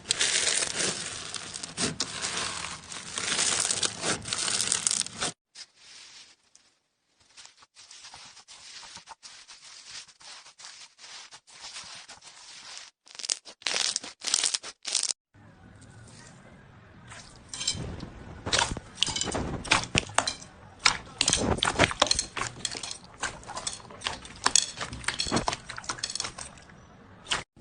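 Slime being squeezed and pressed by hand, crackling and popping in quick sharp clicks. The sound changes at clip cuts: dense crackling, then fainter scattered ticks from about five seconds in, then crisp popping clicks again from about fifteen seconds.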